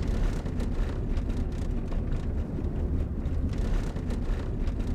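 Road and wind noise inside a car travelling at highway speed: a steady low rumble with a lighter hiss above it.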